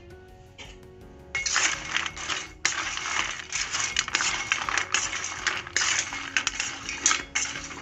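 Crisp fried rice kurkure sticks rattling and clattering against a stainless steel bowl as the bowl is tossed to coat them in spice masala, starting about a second and a half in and going on in quick bursts.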